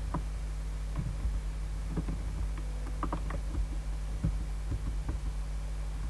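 Steady low electrical hum, with scattered faint clicks of a computer mouse as the software is operated.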